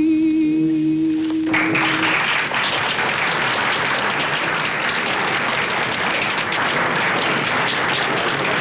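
A singer's held final note ends about a second and a half in, and an audience breaks into steady applause.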